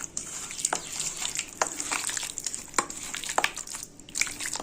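Chicken pieces being mixed in a thick yogurt-and-spice marinade in a bowl: irregular wet squelches and sticky clicks, about one every half second to a second.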